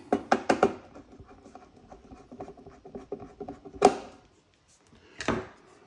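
Screws being done up on the metal top panel of a Gaggia Classic espresso machine: light scratching and rubbing of metal parts, with several sharp clicks in the first second and two more about four and five seconds in.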